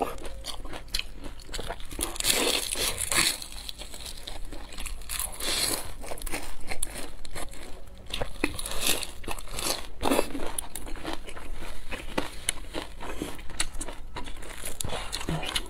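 Close-miked biting and chewing of a crisp deep-fried pastry pocket filled with chives and egg: irregular crunches and crackles of the fried crust.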